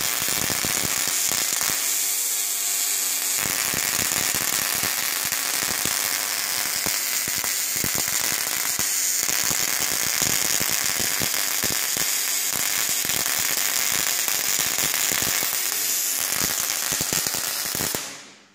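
Spark-gap Tesla coil running, its branching streamers arcing off the top terminal in a loud, steady, dense crackle. It cuts off suddenly near the end.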